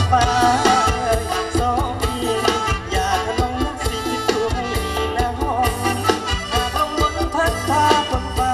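Loud amplified live band music for a Thai luk thung/mor lam stage number, with a steady beat of drum hits under a wavering melody line.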